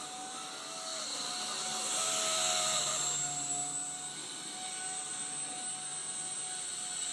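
Blade 130 X micro RC helicopter running: electric motor whine made of several steady high tones over rotor hiss. It swells louder about two seconds in, with some tones shifting in pitch, then eases back. The noise is one the owner finds strange and says changes with main motor speed.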